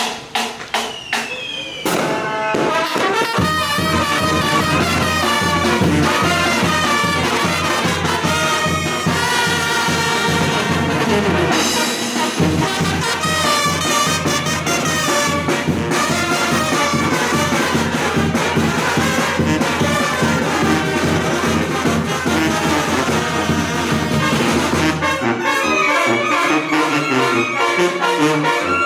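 Oaxacan banda, a brass band, playing a tune with brass to the fore over a steady bass line. A few separate hits come first, and the full band comes in at about two seconds.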